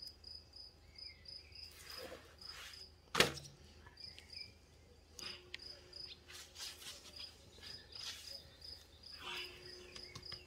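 A cricket chirping steadily, about three to four high chirps a second, over faint taps and rustles of garlic cloves being dropped into a clay güveç pot. One sharp tap stands out about three seconds in.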